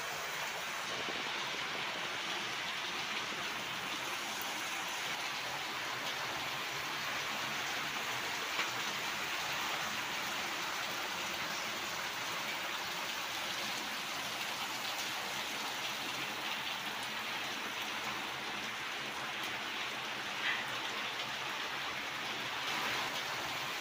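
Steady hiss of rain falling, with two brief faint clicks.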